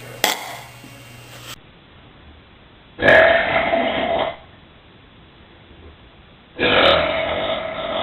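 Two long, loud burps from a person, the second starting about three and a half seconds after the first and lasting longer.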